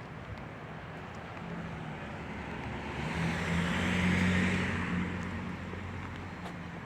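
A motor vehicle driving past on the street: engine hum and tyre noise build, peak about four seconds in, then fade away.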